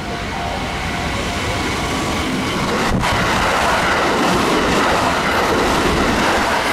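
Kintetsu 1400-series and 2410-series six-car electric train pulling away from the platform and gathering speed past close by, its running noise steadily growing louder, with one sharp click about three seconds in.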